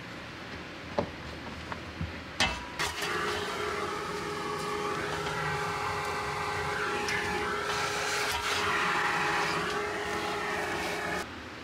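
A few sharp clicks, then a machine's motor starts and runs steadily for about eight seconds with a held hum and a wavering whine above it, cutting off suddenly near the end.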